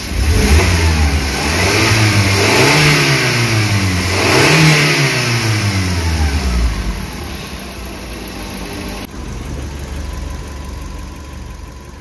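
Suzuki New Carry's four-cylinder engine, freshly reassembled after an overheating repair with its cylinder head skimmed, is revved twice, the pitch climbing and falling each time. It then drops back to a steady idle.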